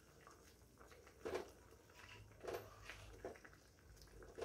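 Mostly near silence, with four faint, brief sounds of a wooden spatula stirring squid and kamias through the sauce in a pan.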